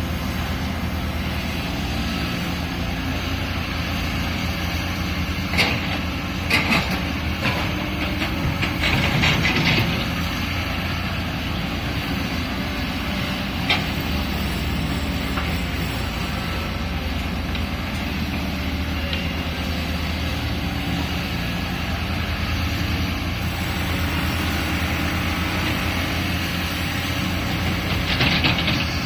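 Caterpillar excavator's diesel engine running steadily, with a few sharp metallic clanks and scrapes from the working machine about six to ten seconds in, once more midway and again near the end.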